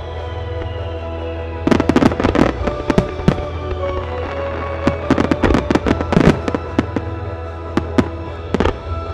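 Volleys of firework bursts over accompanying music: rapid sharp bangs in a dense cluster about two seconds in and again about five seconds in, then a few single reports near the end.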